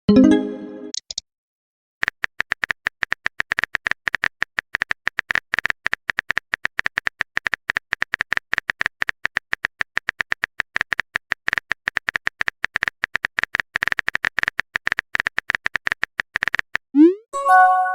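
Rapid, even clicking of a keyboard-typing sound effect, running for about fifteen seconds. Just before it and again near the end comes a short rising swoosh with a bright chime: the message-sent or message-received alert of a phone-texting animation.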